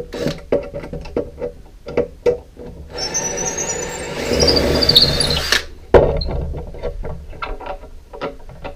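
Cordless drill-driver running for about two and a half seconds, starting about three seconds in, with a high motor whine, then stopping suddenly: backing a screw out of a wooden router circle-cutting jig. Short knocks and clicks of handling the jig come before and after it.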